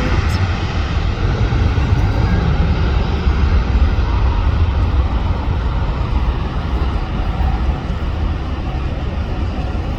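Jet airliner engines, a loud steady rumble that eases off slightly in the last few seconds.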